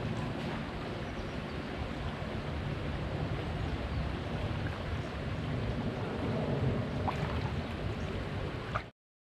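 Steady low rushing of wind on the microphone and road noise while riding. It cuts off abruptly to silence near the end.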